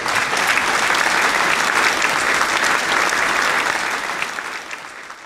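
Applause: many hands clapping in a dense, even patter that fades out over the last second or so.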